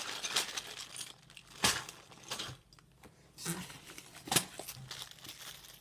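Plastic bags of Lego pieces being handled and rummaged through in a cardboard box: crinkling rustles with a few short, sharp clatters, the loudest about a second and a half in.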